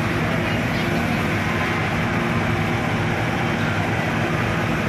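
An engine running steadily at an even pitch, over a constant rush of noise.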